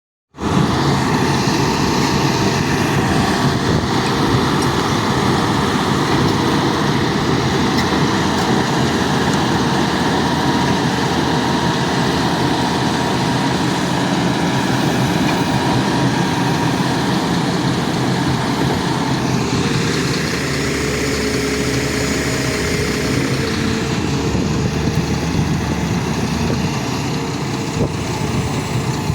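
Excavator's diesel engine running steadily while the machine comes down off a trailer; its note shifts a little about two-thirds of the way through.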